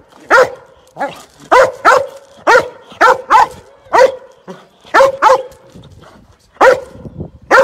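Belgian Malinois barking repeatedly: more than a dozen loud, sharp barks, about two a second, some in quick pairs.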